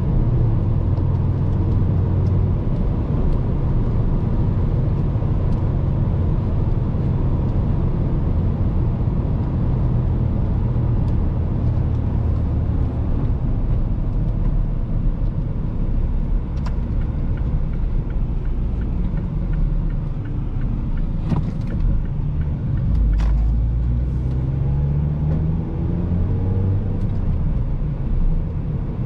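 Cabin sound of a Mazda 5's 2.0-litre four-cylinder petrol engine and tyres on the road at a steady cruise. About three-quarters of the way in come a couple of short clicks, then the engine pitch rises as the car picks up speed.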